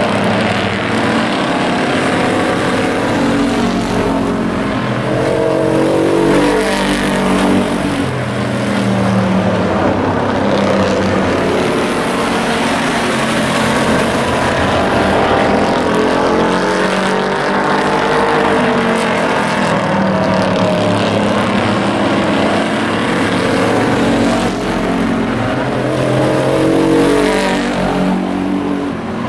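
Several hobby-class race pickup trucks running hard together, their engines rising and falling in pitch over and over as they come past and pull away around the track.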